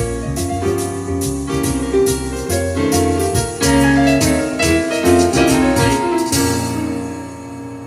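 Instrumental music led by piano or keyboard over a bass line, quick note runs, easing off a little near the end.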